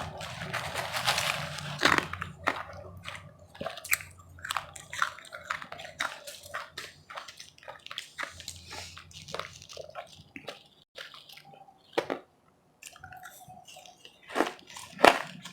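Close-miked chewing and crunching of powdery frozen ice: a long run of small irregular crunches and bites, briefly dropping away about twelve seconds in.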